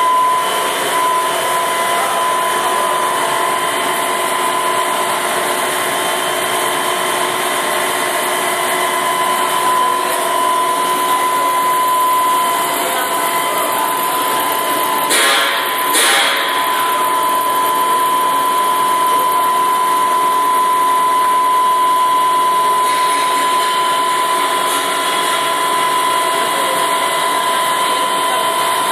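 Plastic filament extrusion machine running: a steady mechanical drone with a high, even motor whine, and two brief bursts of hiss about halfway through.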